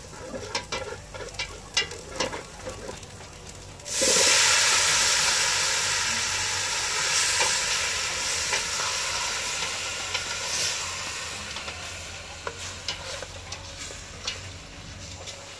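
Frog meat dropped into hot oil in a pot, setting off a sudden loud sizzle about four seconds in that slowly dies down as it is stirred with chopsticks. Before that, light clicks of chopsticks tapping against the pot.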